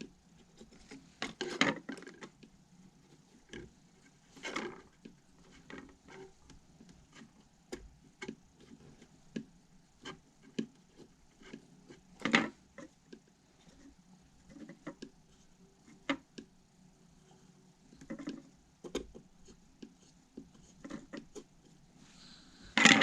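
A tool scratching and scraping across a phone's back cover in short, irregular strokes, the sound of writing into its surface, with a few louder scrapes and taps between them.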